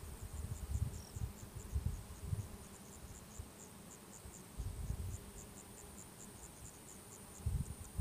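A chirping insect repeating short, high chirps at about four a second, steady throughout. Gusts of wind rumble on the microphone now and then.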